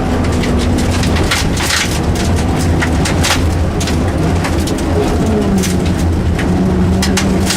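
Rally car's engine running steadily under way, with frequent sharp clicks like gravel and stones striking the car's underside. The engine note drops about five and a half seconds in.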